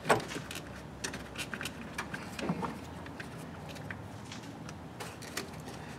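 Scattered light clicks and taps, the sharpest right at the start, as a battery cable terminal and its red cover are handled and fitted onto the battery post.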